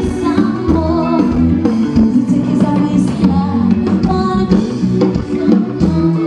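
Band music with a drum kit, guitar and a singing voice, played live at a sound check.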